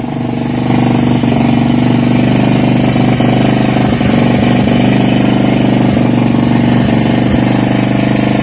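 A boat's engine running steadily at constant speed, an even low throb, with a few faint knocks over it.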